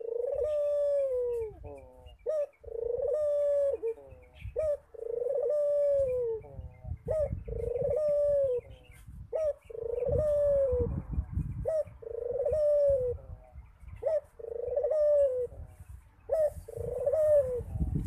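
A caged Barbary dove (ringneck dove, Indonesian burung puter) cooing over and over. Each coo is a short note followed by a longer one that falls at its end, repeated about every two seconds.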